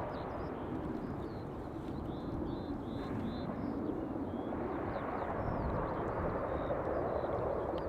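Steady rumble of a jet airliner's engines approaching on short final, still some way off, with a small bird singing short repeated chirps above it.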